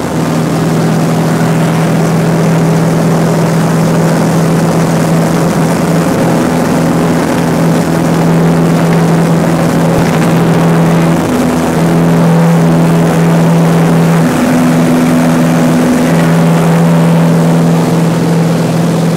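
Cessna 180K's Continental O-470 six-cylinder piston engine and propeller running at high power for departure. It makes a loud, steady drone with a strong even tone that barely changes in pitch, and the loudness swells slightly partway through.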